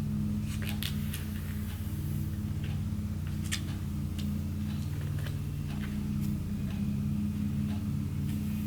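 Scattered light clicks and taps of a phone and screen-protector film being handled, over a steady low hum.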